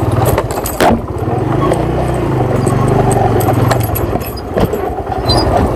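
Motorcycle engine running at low revs, its pulsing exhaust note steady, over a rough off-road track, with a few sharp knocks and rattles, the loudest about a second in.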